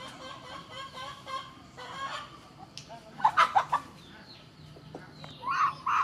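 Animal calls: a quick run of short, loud calls about three seconds in and another cluster near the end, with fainter calls between.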